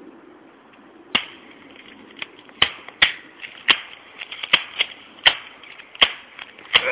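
A string of about ten sharp, shot-like cracks at irregular intervals, starting about a second in, over a faint low hum.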